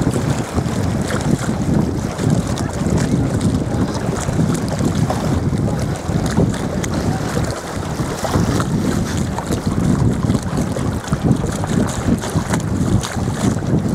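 Wind buffeting the microphone in steady gusts over choppy water lapping against the boat.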